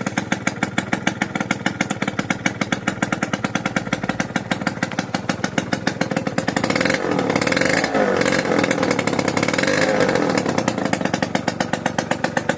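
Yamaha Jog R 50cc two-stroke scooter engine running with a steady, even putter. It picks up and runs louder for a few seconds about halfway through, then settles back.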